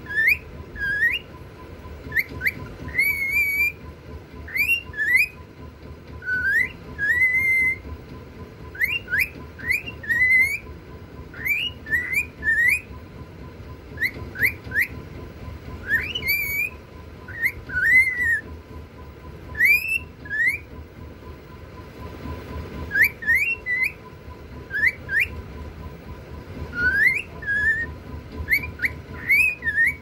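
Grey cockatiel singing: a long run of short whistled notes, most of them quick upward sweeps, repeated over and over with a brief pause about two-thirds of the way through.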